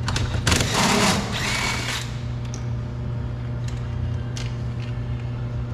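Power screwdriver or drill spinning out a door trim panel screw, running for about a second and a half from about half a second in. A steady low hum lies underneath.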